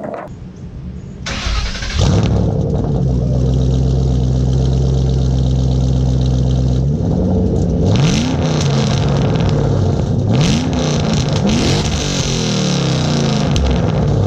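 Shelby GT500's supercharged V8 exhaust with the catalytic converters deleted, running loud. It holds a steady drone for several seconds, then the revs rise and fall several times in the second half.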